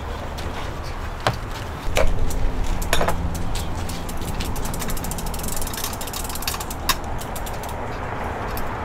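Metal clinks and knocks of a wire roasting rack clamped around a roasted whole pig as it is set down and handled on a table. The strongest knocks come about two and three seconds in, with a quick run of fine rattling clicks around the middle.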